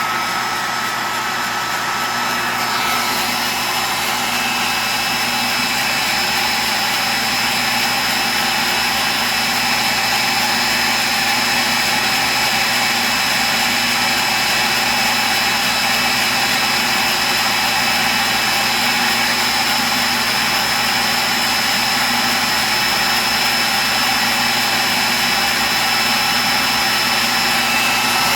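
Dumore tool post grinder running at speed, a steady high whine over a hiss, its small stone taking a light pass across the jaws of a three-jaw lathe chuck. The whine changes about three seconds in.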